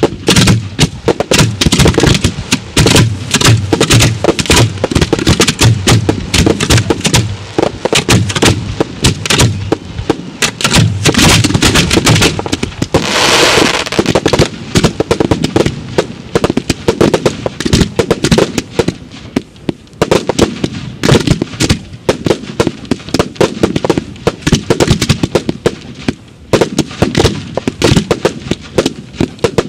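Fireworks display going off: a dense, loud string of rapid bangs and crackles, several a second, with a short hissing rush about halfway through.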